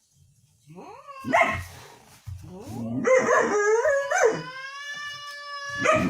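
A dog howling. A short rising call comes about a second in, then a long howl that wavers in pitch before holding one steady note almost to the end.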